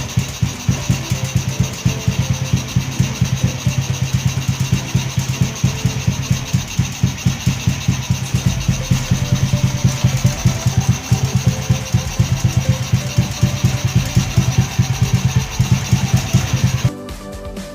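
Honda Wave's single-cylinder four-stroke engine idling steadily with a rapid, even pulse. It cuts off suddenly near the end.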